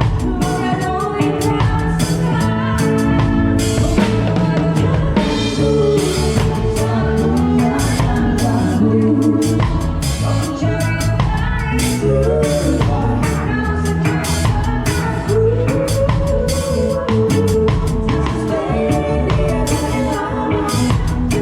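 Live band playing a pop song: drum kit keeping a steady beat under bass and keyboards, with a woman singing the melody.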